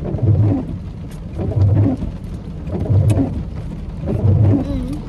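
Music with a deep bass beat repeating evenly about every second and a third, and a muffled, wavering melody between the beats.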